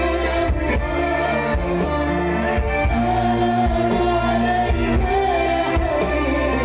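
Live stage music played loud through the PA, with singing over a heavy bass and a steady beat.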